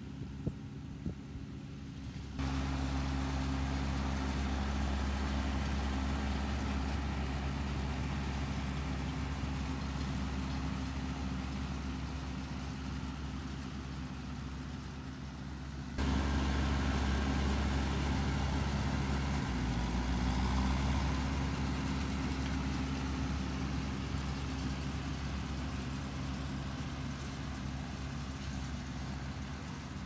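A John Deere tractor's diesel engine runs steadily under load as it pulls a John Deere 468 round baler through hay windrows, with a steady low hum and a light mechanical noise over it. The engine note shifts about two-thirds of the way through.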